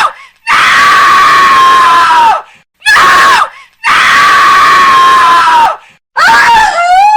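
A woman screaming in terror, a horror scream sound effect: a string of separate loud screams with short silences between, long held screams alternating with a short one, each sliding down in pitch as it ends.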